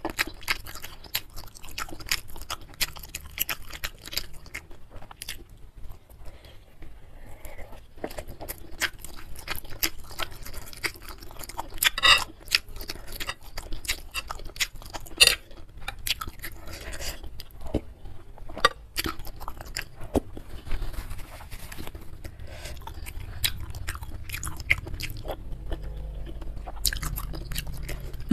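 Close-miked chewing and biting of beef tendon meatballs and noodles: a dense run of short wet clicking mouth sounds, with two louder sharp bites about twelve and fifteen seconds in.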